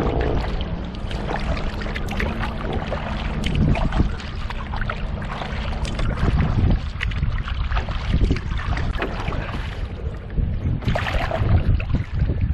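A double-bladed kayak paddle dipping and splashing through the water as a solo canoe is paddled along, over a steady low rumble of wind on the microphone.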